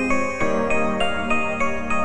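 Soft background music, a steady run of notes about three a second.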